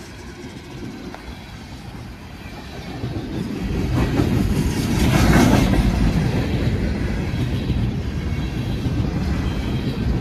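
Freight cars of an empty coal train rolling past close by: a steady low rumble of wheels on the rails that swells to its loudest about five seconds in.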